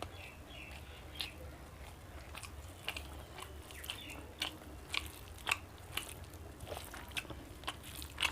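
A person eating close to the microphone: chewing with sharp, irregular crunches every half second to a second.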